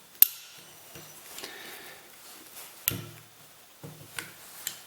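A few sharp clicks and knocks of small metal lathe carriage parts being handled and set down: a sharp one just after the start, then others around three and four seconds in.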